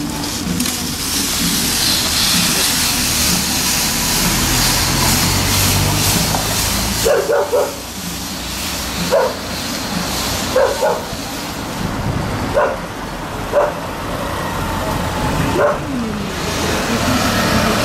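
A motor vehicle passes, then a dog barks about seven times, short single barks a second or two apart.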